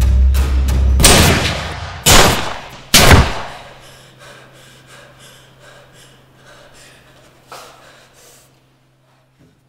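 A handgun fired three times, about a second apart, each shot loud and dying away, the last trailing off slowly. A low droning film score underneath stops at the first shot; afterwards only a faint hum remains.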